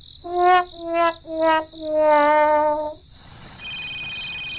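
Comic "sad trombone" sound effect: four falling notes, the last one held and wavering, right after a mishap. It is followed by a steady high electronic tone lasting about a second and a half.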